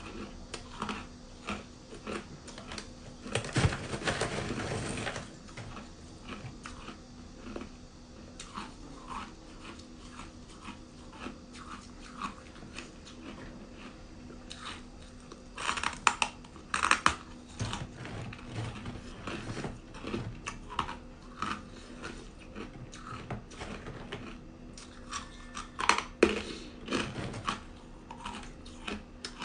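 Ice cubes being bitten and crunched between teeth close to the microphone: a run of sharp cracks and crunches, with denser, louder crunching about four seconds in, around sixteen seconds and around twenty-six seconds.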